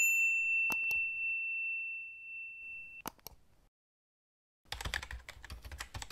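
Notification-bell sound effect: a single bright ding that rings out for about three seconds, with a few sharp clicks. Near the end comes a quick run of keyboard-typing clicks.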